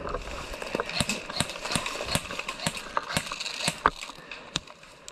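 A string of irregular sharp clacks, about two or three a second, over a faint hiss.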